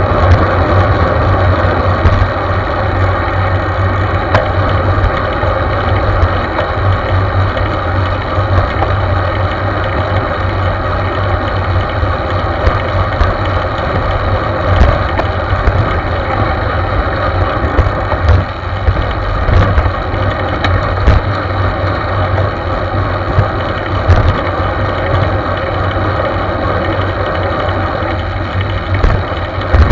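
Wind buffeting the microphone of a camera mounted on a moving road bike, a steady rumbling rush mixed with tyre-on-road noise. A few brief knocks and rattles from bumps in the road come through.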